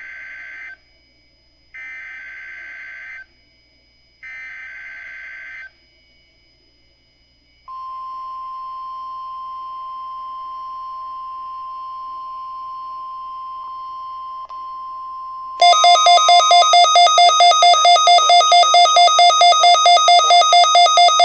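NOAA Weather Radio test signal on a Midland WR120EZ weather radio: three short buzzy bursts of the SAME digital header, then a steady single alert tone for about nine seconds. About two-thirds of the way in, the radio's own much louder alarm starts, beeping about five times a second, set off by the decoded weekly test.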